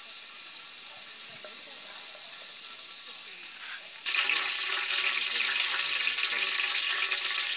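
Cooking oil heating in an aluminium pot over a wood fire, sizzling steadily as it bubbles; it becomes clearly louder about four seconds in.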